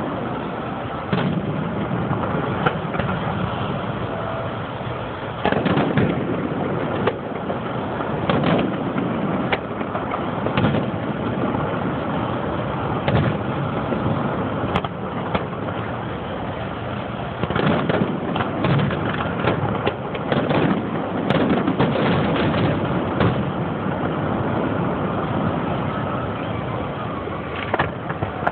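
Aerial firework shells from a Pirotecnia Gironina castillo display, launching and bursting in the sky as a string of bangs and cracks over steady background noise. The reports come thickest about six seconds in and again from about seventeen to twenty-three seconds in.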